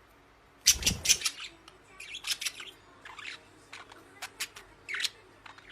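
Pet parrot squawking and chirping in a string of short, sharp calls, the loudest cluster coming just under a second in.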